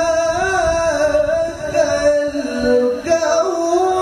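Qur'an recitation in the melodic tilawah style by a male qari, drawn out in a long melismatic phrase: sustained vocal notes that step up and down and waver with ornaments. The voice is amplified through a handheld microphone.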